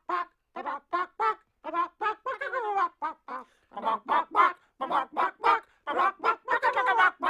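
A quick string of short, chicken-like clucking calls, several a second, coming faster and louder in the second half.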